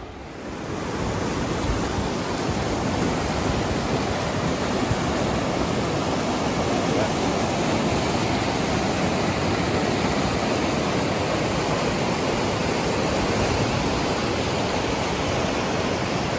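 Fast mountain river rushing over boulders and rocks in whitewater rapids, a steady, loud rush that grows louder about half a second in.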